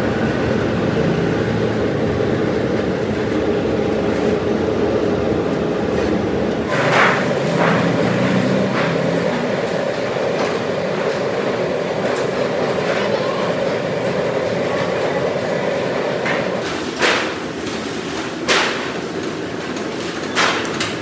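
Steady machinery noise in a workshop, with a hum that changes character about a third of the way in, and a few sharp metallic knocks near the end.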